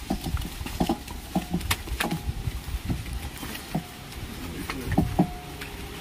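Shuffling footsteps and knocks as a large cardboard-boxed refrigerator is carried by hand through a doorway, with several brief pitched sounds scattered among them.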